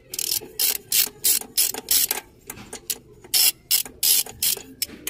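Ratchet wrench clicking in short rapid bursts, about two to three a second, as the bolts of a Suzuki APV's throttle body are undone.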